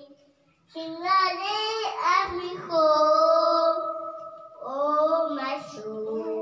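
A small child singing a worship song into a microphone. The singing starts after a short pause and includes one long held note in the middle.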